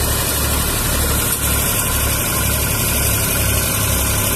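Tractor engine driving a paddy thresher, running steadily with a low, even throb that pulses about twice a second.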